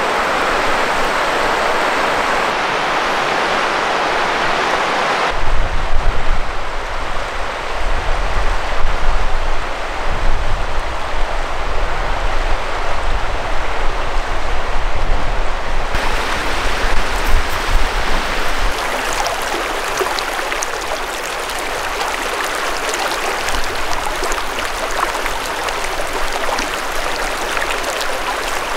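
Rushing water of a rocky mountain river running over rapids, a steady noise of running water. For several seconds in the middle a low, gusty rumble comes in under it.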